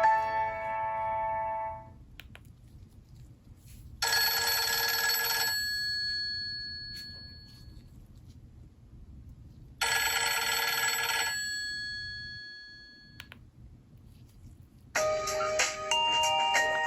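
Nokia N71 ringtones playing from the phone's speaker. A melodic tone fades out, then a ringtone made of a short bright ring about a second and a half long plays twice, about six seconds apart, each ringing on as it fades. Near the end a new, busier melodic ringtone begins.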